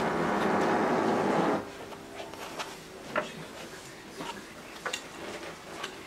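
Paintbrush scrubbing oil paint onto stretched canvas for about a second and a half, then a few light taps and dabs.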